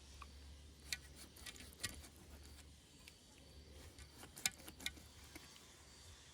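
Faint, scattered light clicks and taps, about half a dozen, the loudest a cluster about four and a half seconds in, over a faint low hum.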